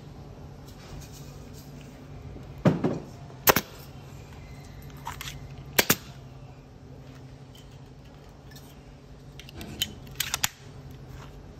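A few sharp clicks or snaps over a steady low hum: one pair about three seconds in, a quick double near six seconds, and a short cluster near the end.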